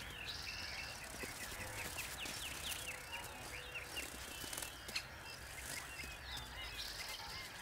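Outdoor bush ambience of many small birds chirping and twittering in quick, short calls, with a short buzzy hiss about half a second in and another near the end.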